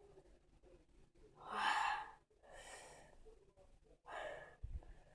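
A man breathing hard through his mouth, three heavy gasping breaths with the first the loudest, as he pants from the burning heat of very spicy noodles.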